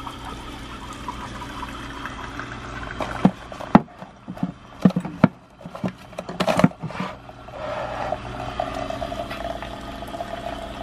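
Keurig single-serve coffee maker brewing, running steadily as coffee streams into a ceramic mug. About three seconds in, a run of sharp clicks and clatters of plastic K-cup pods being sorted in a ceramic bowl, then the steady brewing and pouring again.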